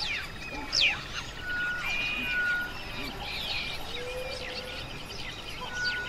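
Several wild birds calling together: sharp downward-sweeping chirps, the loudest about a second in, mixed with short, steady whistled notes that repeat every second or so.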